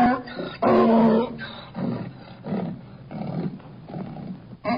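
Donkey braying: two loud, steady-pitched honking notes in the first second and a half, then a run of quieter, breathy gasps about every half second. Another loud honk begins near the end.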